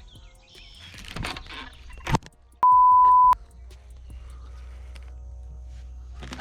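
Censor bleep: one steady, loud beep of under a second, covering a curse. Shortly before it comes a brief burst of noise and a sharp click.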